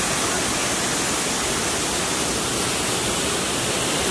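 Steady rush of river water pouring over a low stone weir, an even hiss-like roar that does not let up.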